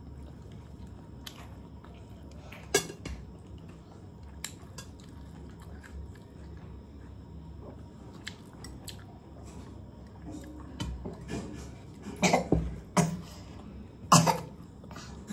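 Metal forks clinking and scraping on plates, with chewing, while eating chow mein noodles. There are scattered light clicks, then a cluster of louder clatters and slurps in the last few seconds as the noodles are sucked up.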